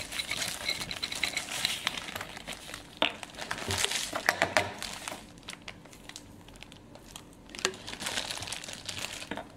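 Crackling and crinkling of a thin clear plastic container being handled as sand and small stones go into it, with the densest crackles in the middle and quieter rustling towards the end.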